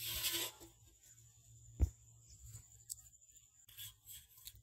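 Handling noises: rustling and scraping at the start, a single dull thump just under two seconds in, then light rubbing near the end, as a metal pot and a plate are handled on grass.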